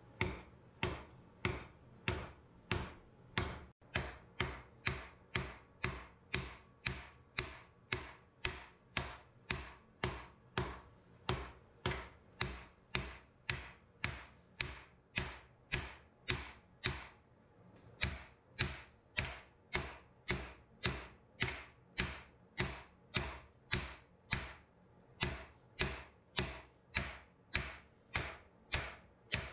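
Hand hammer striking red-hot steel clamped in a leg vise: steady, evenly spaced blows, about one and a half to two a second, with a brief pause a little past the middle.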